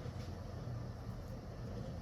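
Steady low background rumble, with a faint click about a quarter of a second in.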